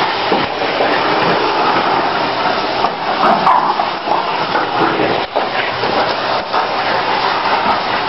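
Vacuum cleaner running steadily.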